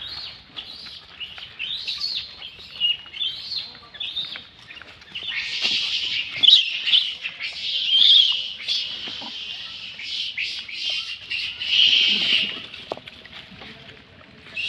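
A troop of rhesus macaques squealing and screeching as they jostle over food. First comes a run of short, high, arching calls; from about five seconds in, louder and denser screeching takes over, easing off near the end.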